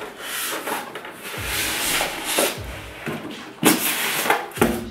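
Polystyrene foam packing rubbing and creaking against a steel PC tower case as the case is handled and laid on its side, with two knocks about three and a half and four and a half seconds in.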